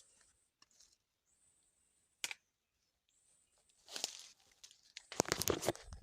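A single sharp click about two seconds in, then rustling and crunching that starts about four seconds in and grows loudest near the end.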